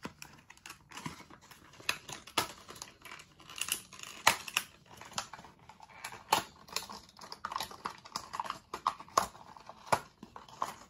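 Die-cast model car's cardboard box and plastic packaging being opened by hand: a string of irregular clicks, taps and crinkles.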